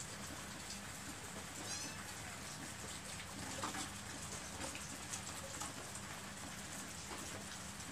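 Steady rain falling, with a cat giving one short, high meow about two seconds in.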